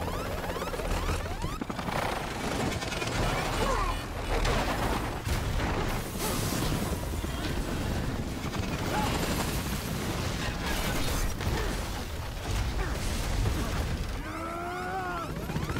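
Film sound of a helicopter crashing, heard from inside the tumbling cabin: a dense, continuous din of metal impacts, crunching and shattering glass, with many short hits. Near the end a brief pitched sound rises and falls.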